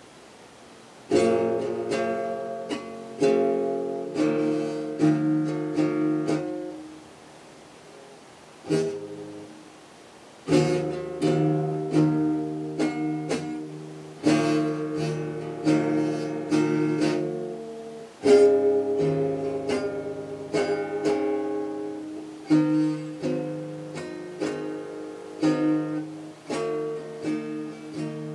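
Acoustic guitar played solo: chords strummed one after another, each left to ring out, with a quieter pause from about seven to ten seconds in.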